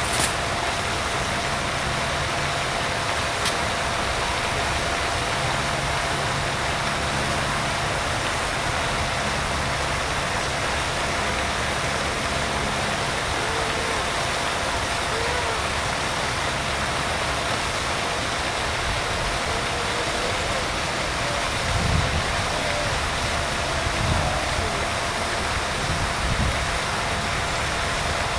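Steady outdoor rushing noise, with a short click at the very start and three dull low bumps about two seconds apart near the end.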